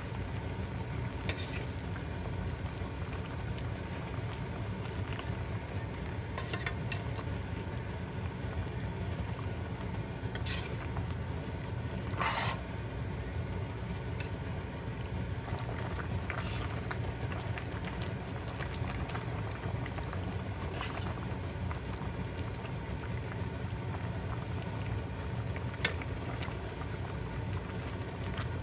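Pot of chicken sinigang (tamarind sour soup) boiling steadily, with short clinks of a utensil now and then.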